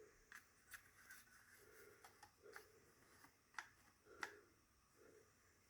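Faint clicks and light knocks from handling a Work Sharp Ken Onion sharpener's belt-tensioning mechanism, which is not catching in its notch as it should. Two sharper clicks come about three and a half and four seconds in.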